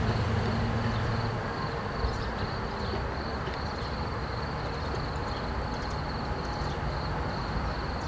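Steady outdoor background noise: a low rumble and hiss, with a thin, constant high-pitched whine over it.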